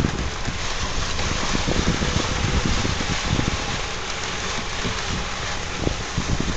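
Honda ATV running while being ridden, with wind buffeting the microphone.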